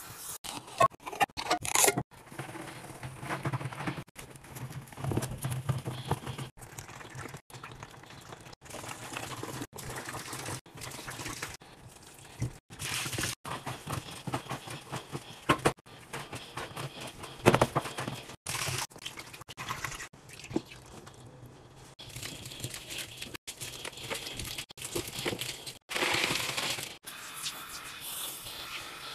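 Sponge scrubbing and rubbing on a stainless steel sink, a rustling, scraping sound cut short again and again by abrupt edits.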